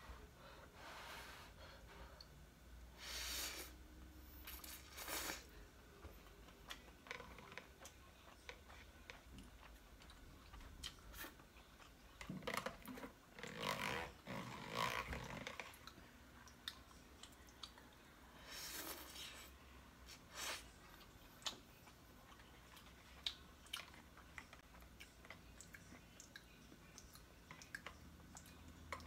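A person eating ramen noodles with chopsticks: quiet slurps and chewing come in short bursts, loudest about halfway through, with light clicks of the chopsticks against the cup in between.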